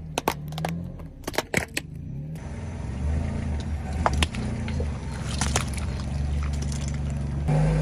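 Car engine running slowly and steadily, with a quick run of sharp cracks and snaps in the first two seconds and a few single snaps later, as things are crushed under the tyres.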